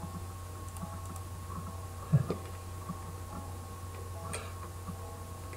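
A few sharp computer mouse clicks, about two seconds in and again past four seconds, over a steady low electrical hum.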